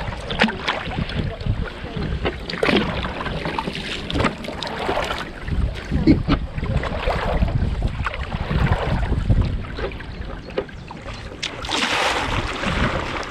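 Double-bladed kayak paddle dipping and splashing into the water, stroke after stroke on alternate sides, with wind rumbling on the microphone. Near the end comes a bigger splash as a blade pulls through the water.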